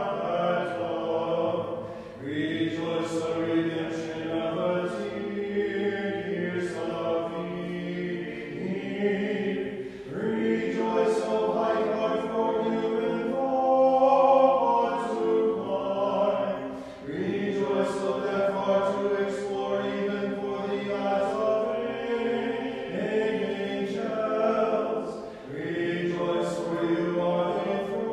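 Unaccompanied Orthodox liturgical chant sung by a choir, in long held phrases with short breaks for breath about every seven seconds.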